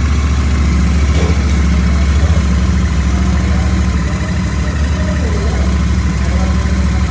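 Royal Enfield Shotgun 650's parallel-twin engine idling steadily, a low, even pulsing exhaust note.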